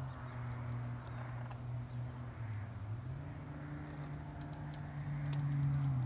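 Pair of macaws preening each other, with a quick run of soft beak clicks near the end, over a steady low hum that steps up slightly in pitch about halfway through.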